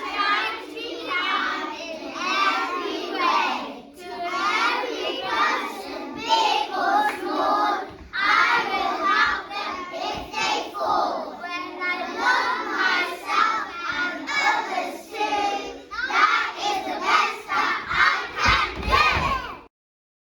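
Many children's voices at once, loud and overlapping in short phrases, too jumbled for words to be made out. They cut off abruptly near the end.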